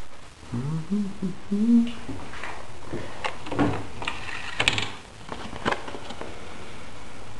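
A person humming a few gliding notes, followed by scattered light clicks and knocks as brochures in a wall rack are handled.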